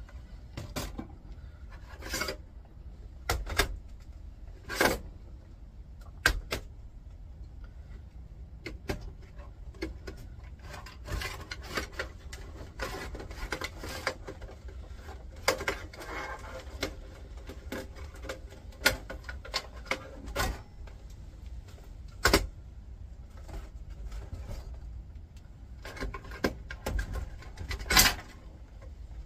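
Metal-cased CD-ROM drives and parts being handled and set down against each other: irregular clunks, clicks and knocks with rubbing and scraping in between, the loudest knock near the end.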